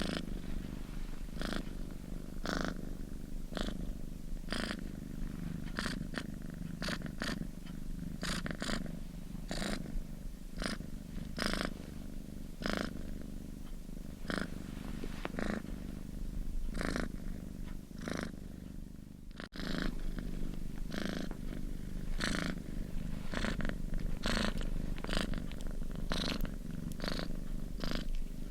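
Domestic cat purring steadily: a continuous low rumble with a breathy rasp roughly once a second. The purr dips briefly about two-thirds of the way through, then carries on.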